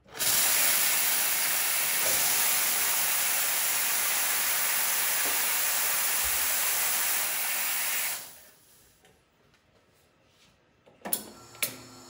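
Steam wand of a La Marzocco Linea Classic 2EE espresso machine opened, blowing steam with a loud, steady hiss that stops about eight seconds in. Two sharp clicks follow near the end.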